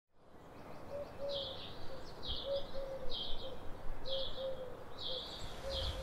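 Eurasian collared dove singing its three-note cooing song, the phrase repeated four times about a second and a half apart, with a smaller bird chirping higher up at the same time.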